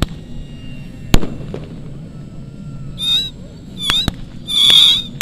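A pyrotechnic charge goes off with one sharp, loud bang about a second in, simulating a bomb strike in a mock air battle. It sounds over a steady low drone of model aircraft engines. From about three seconds, several shrill, wavering whistles follow, with short cracks among them.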